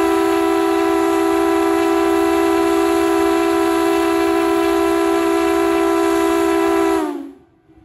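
Eight-inch three-chime Lonergan steam whistle blowing a loud, steady chord over a hiss of steam. Near the end the chord sags in pitch and cuts off.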